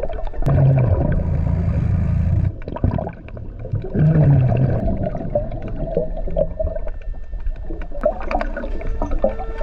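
Scuba diver breathing through a regulator underwater: two bubbly exhalations, one from about half a second in lasting some two seconds and another about four seconds in.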